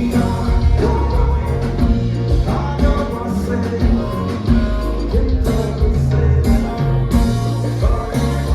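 Kompa band music played live, with a vocalist singing over guitar, a strong bass line and a steady dance beat.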